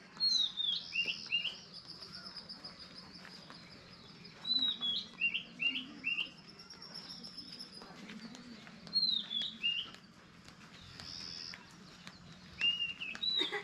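Songbirds singing. One bird repeats a short phrase of four or five clear, down-slurred whistles about every four seconds, and between the phrases another high, rapid trill runs on.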